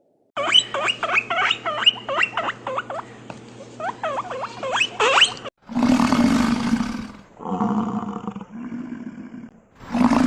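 Animal calls: about five seconds of rapid, high chirps and squeals, then a run of harsh, rasping, roar-like calls, each about a second long.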